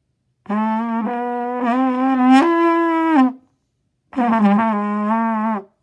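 Trumpet blown in two long, brassy held notes. The first steps up in pitch about two seconds in; the second is shorter and wavers as it starts.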